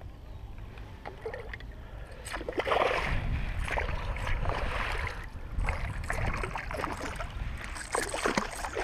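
A hooked bass splashing and thrashing in the shallows as it is reeled in to the shore, starting about two and a half seconds in, over a low rumble of wind on the microphone.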